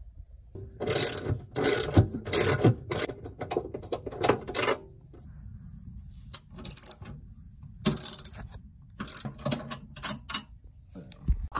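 Hand ratchet with a 10 mm socket clicking in repeated short runs as it loosens the seat-base bolts, each run a quick string of pawl clicks on the back-swing.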